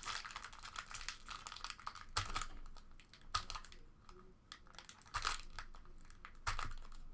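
Trading-card packs and cards being handled: wrappers crinkling and cards sliding and clicking against each other in a quick run of rustles and small clicks.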